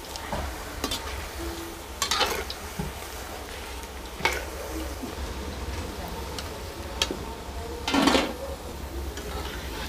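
Onion and potato pakoras deep-frying in hot oil in a kadhai, sizzling steadily, while a long metal slotted spoon stirs them and knocks and scrapes against the pan a few times. A louder scrape comes about eight seconds in as fried pakoras are lifted out.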